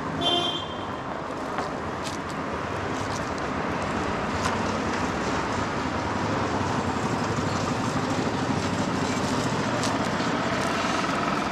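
Street traffic: cars running along a town street, a steady wash of engine and tyre noise that grows slightly louder in the second half. A short, high-pitched chirp sounds just after the start.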